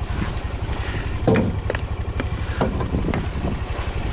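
Honda Pioneer 700 side-by-side engine idling steadily, with a few short knocks and clinks over it.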